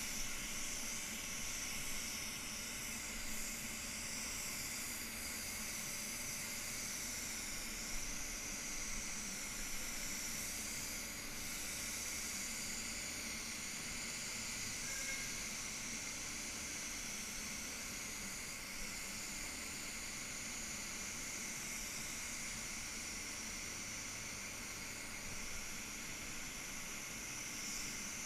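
Gravity-feed spray gun hissing steadily as compressed air atomises paint onto a car panel.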